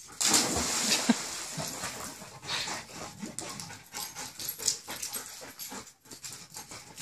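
Dog whimpering, with a short cry about a second in, while a miniature poodle paddles in a swimming pool. A rush of splashing water in the first second.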